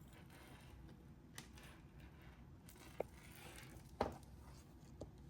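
Faint rustling of small packaging and a few light clicks and taps as beads and charms are handled, the loudest tap about four seconds in.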